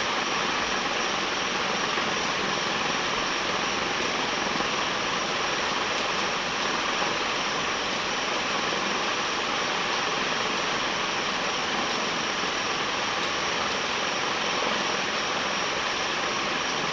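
SMC Laguna KA36 36-inch industrial ceiling fan running at full speed on its variable-speed control, its curved aluminum blades giving a steady rush of air.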